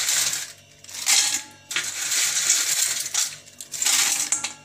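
Crisp fried potato chips rattling against a stainless steel bowl as the bowl is shaken, in several bursts with short pauses between.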